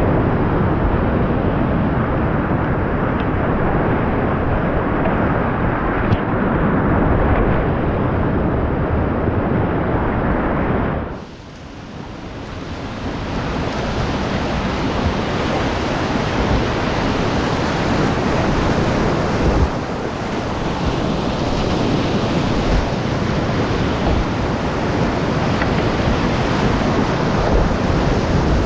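Whitewater rapids of a mountain river rushing loudly around a kayak. About eleven seconds in, the rushing drops suddenly and builds back up over a few seconds.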